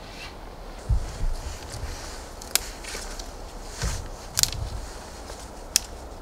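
Green sticks handled and snapped by hand in the snow: three or four sharp twig cracks, with dull thumps and shuffling of a body moving in the snow around one and four seconds in.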